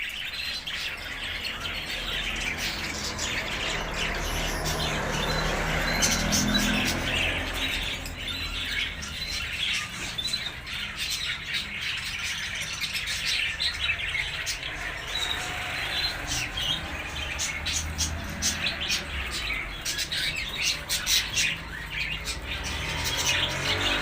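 Small birds chirping and twittering, many short calls overlapping without a break, over a steady low hum.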